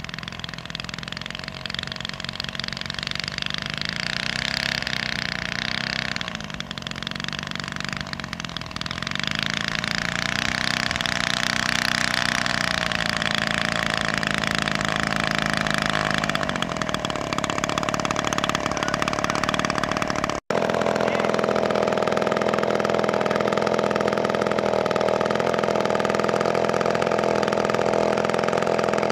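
3W-55 single-cylinder two-stroke petrol engine of a giant-scale model Spitfire running while the plane taxis, its pitch wavering up and down as the throttle is worked. About twenty seconds in it settles to a steady, louder idle heard up close.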